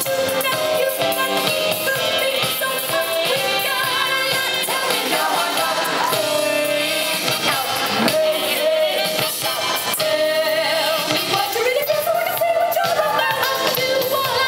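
A song playing, with a singer's melody line over steady instrumental backing.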